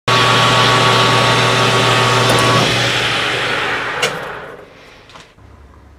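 Metal lathe running while an 8.7 mm drill bit bores into an aluminum workpiece, a steady machine hum with a higher cutting tone. The cutting tone stops about two and a half seconds in, and the machine noise fades away after a click about four seconds in.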